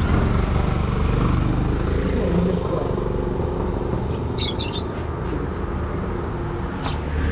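Caged birds chirping briefly about four and a half seconds in, with a shorter chirp near the end, over a steady low background rumble.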